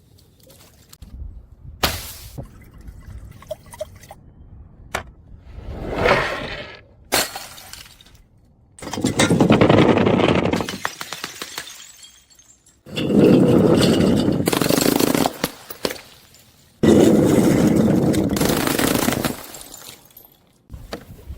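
Glass bottles being crushed and breaking: a few sharp cracks, then three loud stretches of dense crunching and shattering glass, each lasting two to three seconds and starting suddenly.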